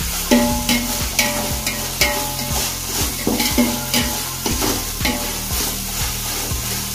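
Metal ladle stirring and scraping a frying onion-tomato masala around a steel pot, about two strokes a second, with clinks and brief metallic ringing against the pot over the steady sizzle of oil. The onions are well sautéed in the oil.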